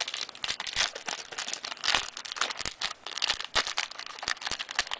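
Trading cards and their foil pack wrappers being handled: a quick, irregular run of crinkles, rustles and small clicks as the cards are flipped through.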